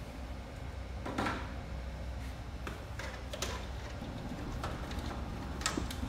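Faint scattered clicks and knocks of hands and tools working the plastic covers and screws of a photocopier, over a low steady hum.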